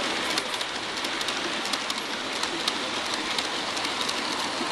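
Garden-scale live-steam freight cars rolling past on their track, the wheels clicking irregularly over the rail joints over a steady hiss.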